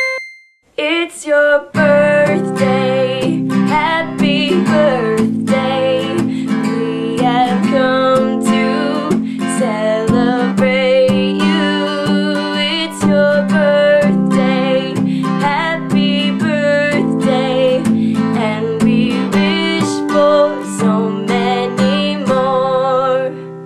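Acoustic guitar strummed steadily, with a woman singing over it.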